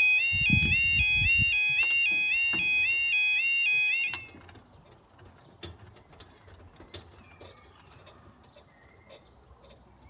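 Railway level crossing's two-tone warbling 'yodel' alarm sounding as the road barriers come down, then cutting off abruptly about four seconds in with the barriers lowered.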